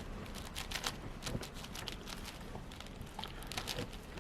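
Plastic 6x6 Rubik's cube being turned by hand, its layers clicking as they snap round in an irregular run of sharp clicks.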